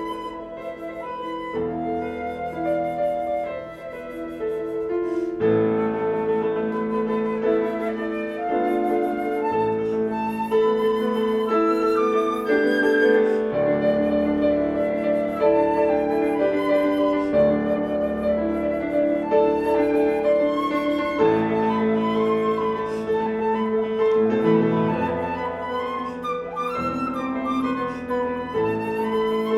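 Flute and piano playing a classical duet: the flute holds long sustained notes over piano chords, the piano filling in more fully from about five seconds in.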